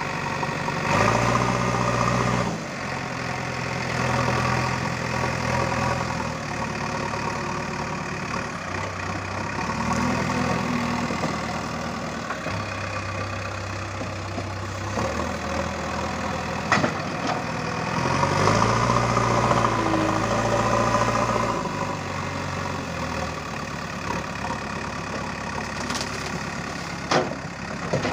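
JCB backhoe loader's diesel engine running while the front bucket works soil. It revs up under load a few times: about a second in, around ten seconds in, and for a longer stretch around eighteen to twenty-one seconds. Several short sharp knocks come in the second half.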